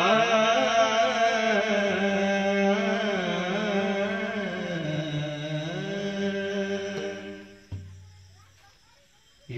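A male singer holds one long, ornamented note of a closing Bhairavi bhajan, the pitch sliding slowly downward. The phrase ends about three-quarters through, a short low thud follows, then a brief pause before the voice comes back in near the end.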